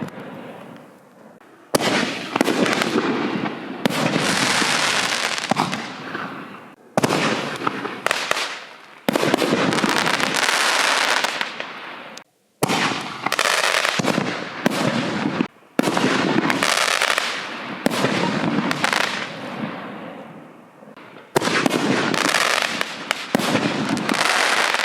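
Six-inch canister firework shells bursting: seven loud bangs a few seconds apart, each followed by a dense crackling hiss that fades away.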